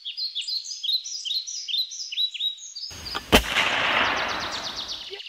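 Birds chirping in a quick, repeated pattern, then about three seconds in a sudden rush of noise and a single sharp gunshot that fades away over about two seconds.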